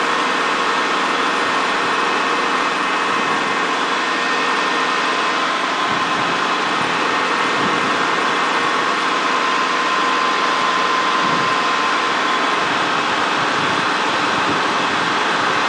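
Helicopter cabin noise in flight: a steady, even drone of engine and rotor, with a thin high whine running through it.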